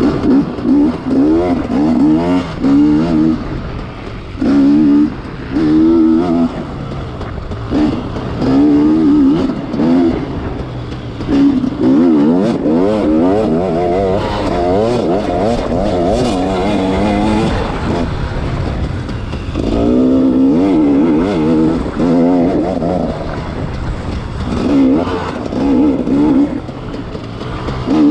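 Off-road racing motorcycle engine revving hard and repeatedly as the throttle is opened and shut, in short bursts of about a second at first and toward the end, with longer pulls in the middle.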